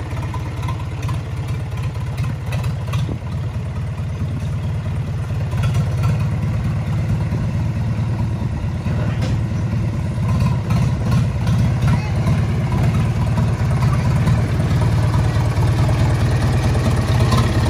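Mahindra 585 DI tractor's four-cylinder diesel engine running steadily as the tractor is driven slowly. It grows a little louder about six seconds in.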